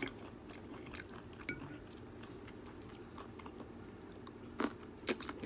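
Metal fork and knife clinking and scraping against a ceramic plate while cutting steak: a handful of scattered light clinks, the loudest two near the end, over a faint steady low hum.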